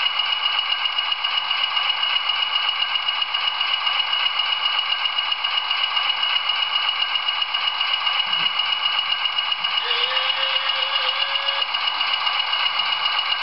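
Bachmann OO gauge Class 20 model's DCC sound decoder playing the English Electric diesel engine ticking over: a steady, rattly idle with a quick even beat. It sounds thin, with almost no bass, through the model's tiny speaker.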